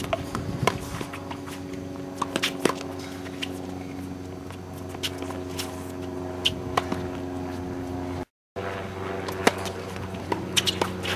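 Doubles tennis rally on a hard court: sharp pops of racquets striking the ball and the ball bouncing, some in quick pairs, over a steady low hum. The sound drops out briefly about eight seconds in.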